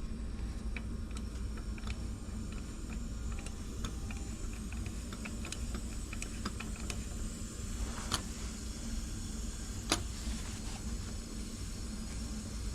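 Compressed air from a leak-down tester rushing out of a Can-Am Renegade engine cylinder, a steady low rush with scattered light clicks and two sharper taps about eight and ten seconds in. The air is escaping past the exhaust valve, a sign that the valve is not seating.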